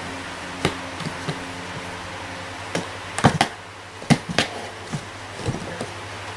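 Irregular light knocks and taps on a cardboard box as a cat's paw bats out through a hand hole at another cat's tail hanging down the side, the loudest few coming a little past the middle. A steady low hum runs underneath.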